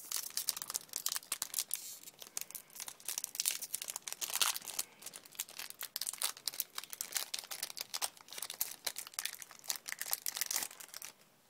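Foil wrapper of a Yu-Gi-Oh booster pack crinkling as it is handled and torn open. The dense crackle stops about half a second before the end.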